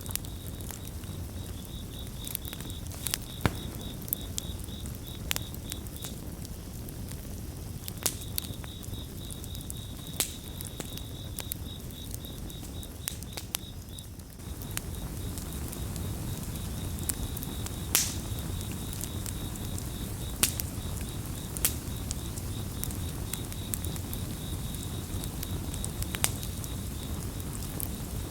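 Campfire burning, with sharp crackles and pops of burning wood over a low, steady rush of flame. A cricket chirps in a fast, high pulsing trill through most of it, pausing briefly a couple of times.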